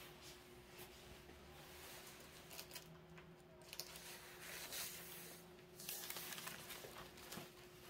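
Faint swish of a calligraphy brush dragging across paper in several slow strokes, over a low steady hum.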